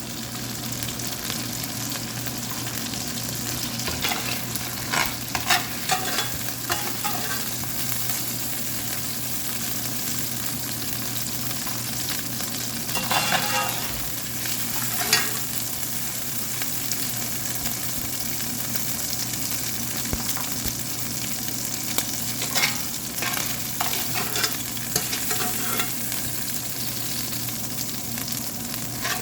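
Oil sizzling steadily in a hot pan during stir-frying, with a spatula scraping and clicking against the pan in a few short bursts.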